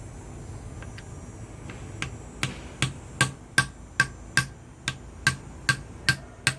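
Small hammer tapping a metal rivet cap down over a nail to fasten a quiver fitting: a few faint taps at first, then from about two seconds in a steady run of sharp, ringing metal strikes, about two and a half a second.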